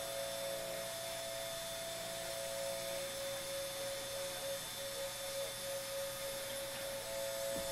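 3018 desktop CNC router running a finishing pass, its spindle whining steadily as a 1 mm ball-nose bit mills soft pine. A second, slightly higher tone drops out about three seconds in and returns near the end.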